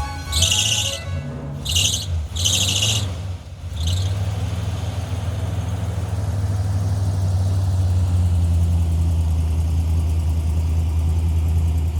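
Van engine running at idle: a steady low hum that settles in about four seconds in. Before that come a few short hissing bursts over an unsteady low engine sound.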